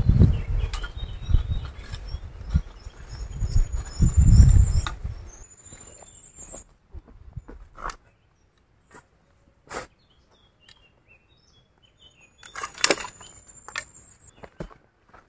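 A low rumble over the first five seconds, then a few sharp scrapes and knocks of a shovel digging soil and tipping it into a wheelbarrow, the biggest cluster near the end. Birds chirp and whistle thinly throughout.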